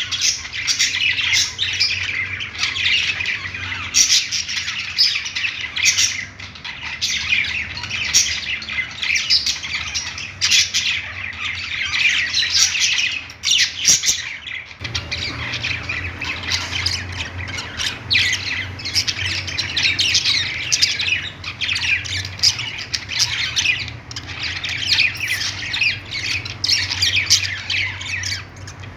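A flock of budgerigars chattering and squawking together in a dense, continuous chorus of short overlapping calls. A low hum runs underneath and becomes stronger about halfway through.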